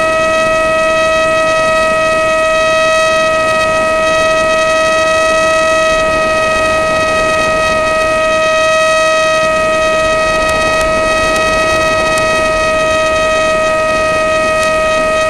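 Brushless electric motor and propeller of an Easy Star RC plane, heard through its onboard camera, running at steady throttle: a loud, steady whine, with wind rushing over the microphone underneath.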